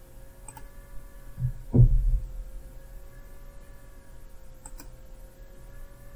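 Computer mouse clicking twice against a steady electrical hum with a faint whine over it. Two low thumps, the second the loudest, come about a second and a half in.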